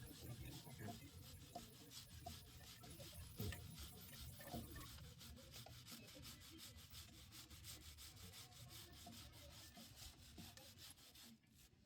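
Faint scrubbing of a brush on a motorcycle drive chain, in quick repeated strokes, loosening gunk during chain cleaning.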